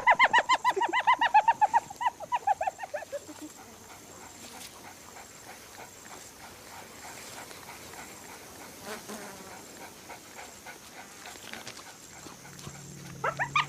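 A fast run of short, high, yelping animal calls, several a second, falling away over the first three seconds. A few more calls start near the end.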